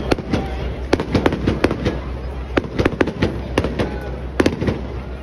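Fireworks bursting in rapid, irregular succession: sharp bangs a few times each second over a continuous low rumble.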